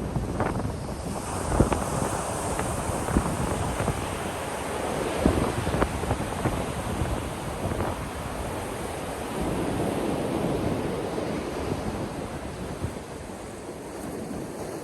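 Ocean waves breaking and washing up a beach in a continuous surf wash, with wind gusting on the microphone.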